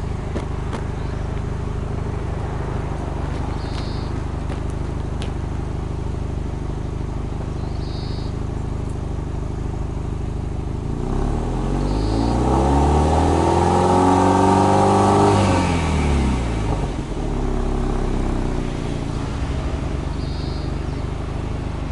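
Subaru Impreza WRX STI R205's turbocharged flat-four boxer engine heard at the exhaust: idling steadily, then revved up slowly in neutral about halfway through, held high for a few seconds and let fall back to idle.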